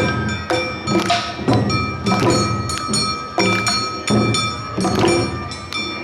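Awa odori narimono band playing: drum strokes and the ringing of a kane hand gong in a brisk, repeating rhythm.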